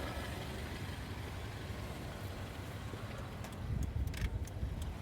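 Car engine idling with a steady low rumble; the rumble grows louder for about a second from three and a half seconds in, with a few light clicks.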